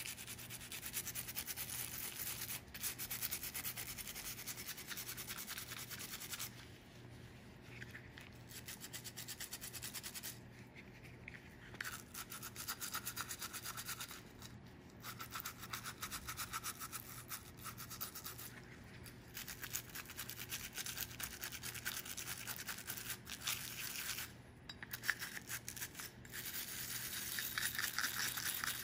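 Stiff-bristled brush scrubbing a rusty metal bottle opener in quick back-and-forth strokes, wet with cleaning solution, stopping briefly a few times.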